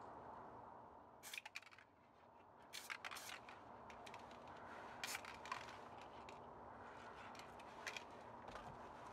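Brief scratchy scraping and crinkling at the wet painting surface, in four short clusters over a faint steady background.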